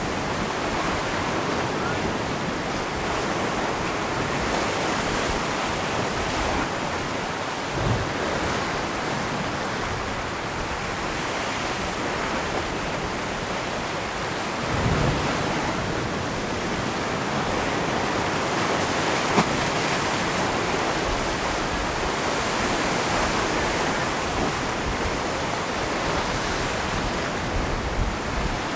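Pacific Ocean waves churning and splashing through a rocky chasm and over a rock shelf: a steady rush of surf and white water, with a few deeper thumps as waves surge in, about a quarter of the way in and again around halfway.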